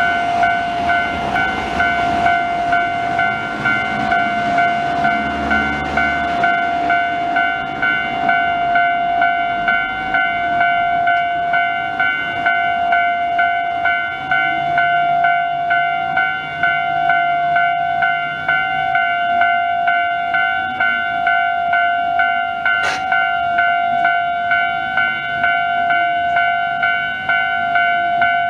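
Japanese railway level-crossing alarm sounding Tobu Railway's standard electronic warning tone: a steady ringing tone repeating in a regular pulsing beat without a break, signalling that a train is approaching and the crossing is closed.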